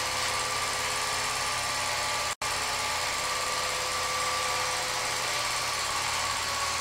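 Home-movie film projector running: a steady mechanical whirr with a faint hum. The sound cuts out for an instant about two and a half seconds in.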